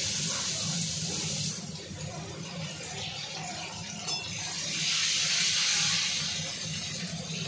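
Potato chunks frying in hot oil in an aluminium wok, a sizzling hiss that eases off after a second or so and swells again about five seconds in as a spatula turns them. A low steady hum runs underneath.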